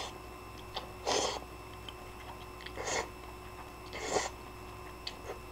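A person slurping ramen noodles from a bowl: three short slurps about a second and a half apart, with small mouth clicks between them.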